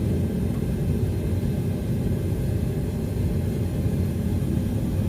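Gas forge burner running with a steady low roar while a workpiece heats to welding temperature.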